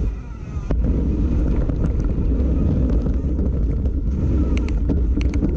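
Mountain bike riding fast down an asphalt trail: a steady low rumble of wind buffeting a handlebar-mounted action-camera microphone mixed with tyre noise. It eases for a moment just after the start, and the bike rattles sharply a few times near the end.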